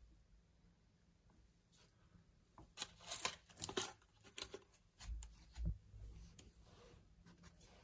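Hands handling small objects at a workbench: a run of rustles and sharp clicks in the middle, then two low thumps about five seconds in.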